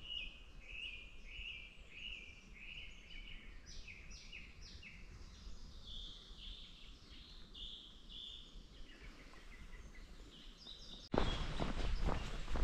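A songbird singing in series of short, clear, repeated notes, some runs pitched higher than others, over a faint hiss. About eleven seconds in it cuts suddenly to louder footsteps on a path.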